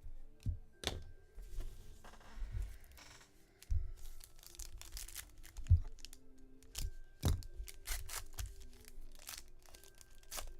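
Trading card packs being handled and opened: wrappers tearing and crinkling among a string of sharp clicks and a few louder knocks, the loudest about halfway through, over quiet background music.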